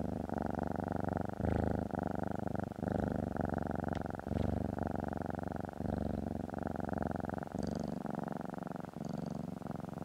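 Domestic cat purring steadily as it is scratched under the chin, the purr pausing briefly every second or two.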